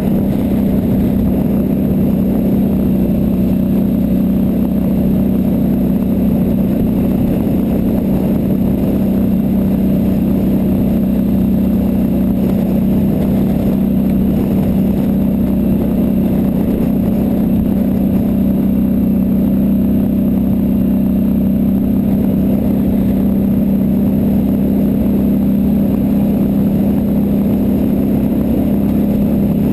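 Red ATV's engine running steadily at cruising speed with a constant drone, heard from the rider's seat while it travels along a gravel trail.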